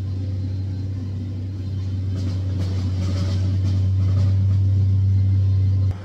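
An engine running steadily, heard as a low, even drone that grows slightly louder through the clip.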